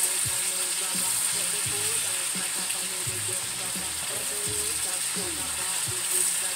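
Chicken thighs frying in hot oil in a stainless steel skillet, a steady sizzle, as the pieces are turned with metal tongs. The pan is hot enough to brown and colour the chicken before it is stewed.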